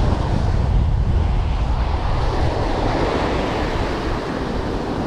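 Small ocean waves breaking and washing up the sand close by, a steady rushing surf, with wind rumbling on the microphone.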